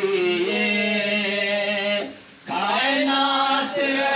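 Man singing a Punjabi manqabat, a Sufi devotional poem in praise of Ali, in long held, bending phrases, with a short pause for breath about two seconds in.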